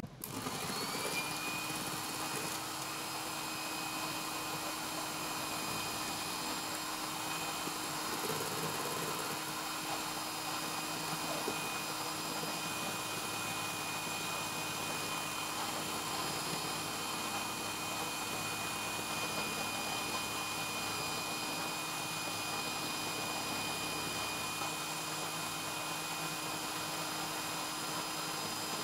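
Electric hand mixer starting up and then running at a steady pitch, its beaters whisking a thin egg-and-sugar cake batter in a bowl.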